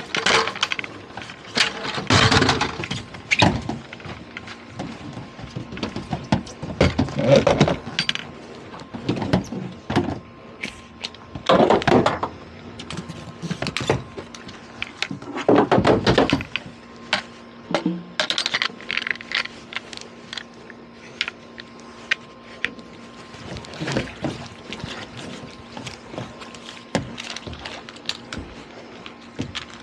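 Irregular knocks, thunks and clunks of hoses and gear being handled on a boat's deck, several sharp knocks standing out, with a faint steady hum joining about halfway through.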